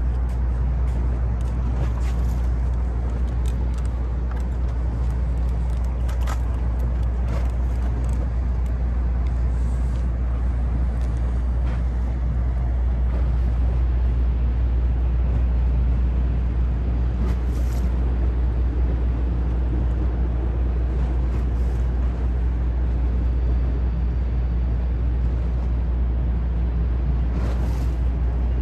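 Docked passenger ferry's engines idling with a steady low drone, joined by a few faint ticks.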